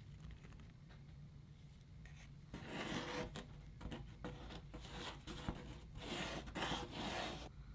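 A wooden stir stick scraping and rubbing against the edge of a trackbox recess as epoxy is worked in. It comes as a string of short, uneven scrapes, starting about two and a half seconds in and stopping shortly before the end.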